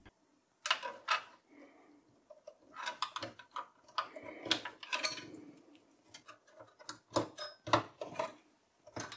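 SATA power and data cables being handled and plugged into their connectors inside a desktop PC case: scattered sharp plastic clicks and taps, with light rustling of the cables in between.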